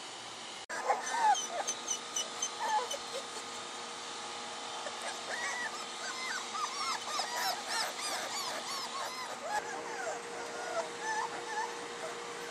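Litter of soft-coated wheaten terrier puppies whimpering and yipping, with many short, high, rising-and-falling whines overlapping one another. The whines start abruptly about a second in.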